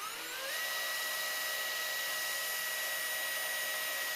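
Electric drill spinning up, its whine rising over about half a second, then running steadily at high speed while drilling a hole through sheet metal.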